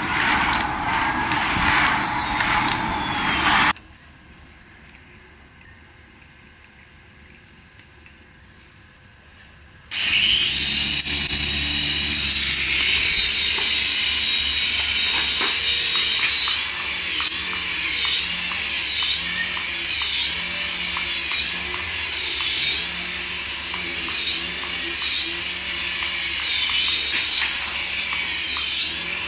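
Small electric motor of a remote-control toy whining at high speed. It stops for a few seconds with only a few clicks, then starts again about ten seconds in and runs steadily, with a high tone that wavers up and down about once a second.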